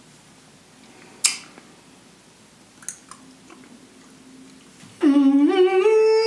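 Faint chewing with a sharp lip smack about a second in. About five seconds in, a man hums a long closed-mouth "mmm" that rises in pitch and then holds steady for about two seconds.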